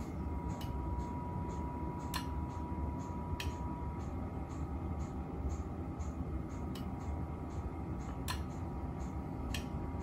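Steady low electrical hum with a faint high whine for the first few seconds, and a handful of soft, sharp clicks spread through it.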